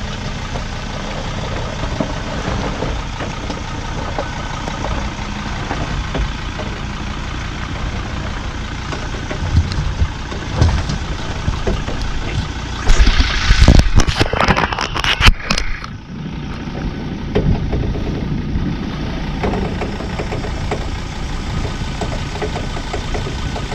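An off-road vehicle's engine running steadily at low revs. About thirteen seconds in comes a loud, rough burst of noise lasting around three seconds, the loudest thing heard.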